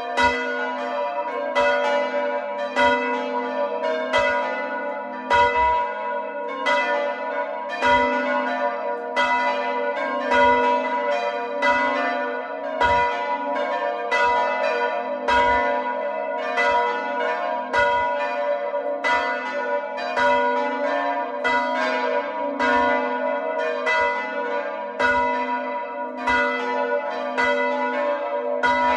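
A manually rung peal of four church bells, the largest tuned to A and cast by De Poli in 1921, the other three cast by Paolo Capanni in 1951, ringing a continuous sequence of strokes. The strokes follow one another steadily, each leaving a long ringing tone under the next.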